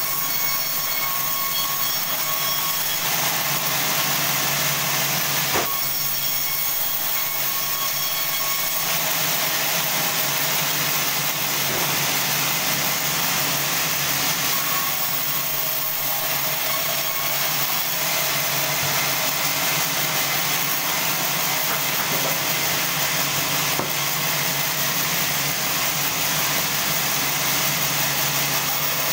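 Band sawmill running steadily, its blade cutting through a large log, with a hiss of sawing that brightens a few seconds in and one sharp click about five seconds in.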